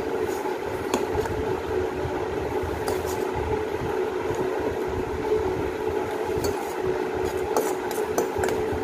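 Steady mechanical hum with an uneven low rumble of moving air, like a running electric fan, and a few light clinks of a spoon against a plate as she eats.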